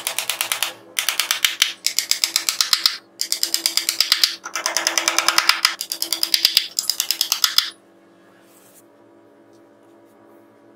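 Hammer tapping small nails into a plywood panel in six quick runs of light blows, about ten blows a second, stopping about three-quarters of the way through.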